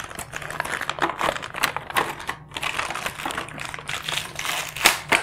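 Toy packaging being unwrapped by hand: a steady flurry of small crackles and clicks, with one sharper snap near the end.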